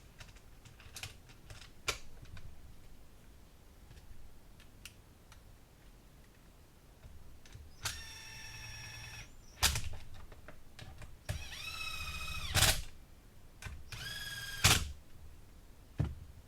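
Small electric power tool, run in three short bursts of steady motor whine, each cut off with a sharp click, the middle burst rising in pitch as it starts. Light clicks of handling tools come before the bursts.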